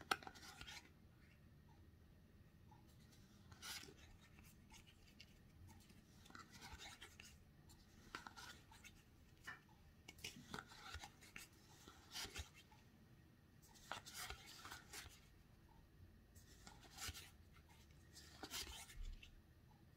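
Faint swishes and scrapes of playing cards sliding against each other as a stack is thumbed through by hand, one short stroke every second or two at an uneven pace.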